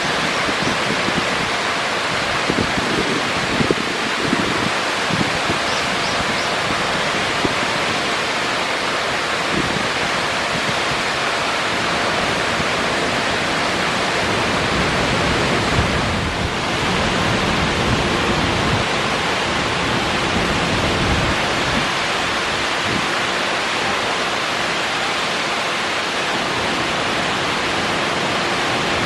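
Artificial waterfall pouring and cascading over boulders, a loud, steady rush of falling water with a brief dip a little past halfway.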